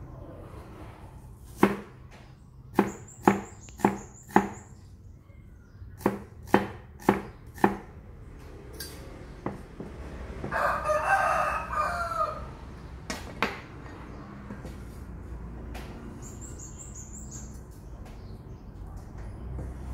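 Cleaver chopping shallots on a wooden chopping block: a run of about nine sharp knocks, then two more near the end. A rooster crows once about ten seconds in.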